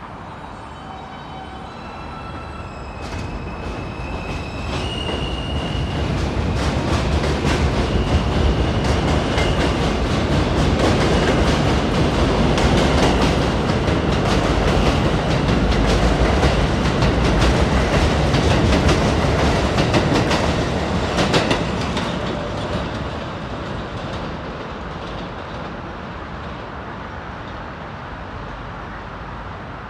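R160 subway train pulling out and accelerating: its propulsion whine climbs in steps of rising pitch for the first few seconds. Then the wheels rumble and clatter over rail joints, loudest as the cars pass, and the noise fades after about twenty seconds as the train draws away.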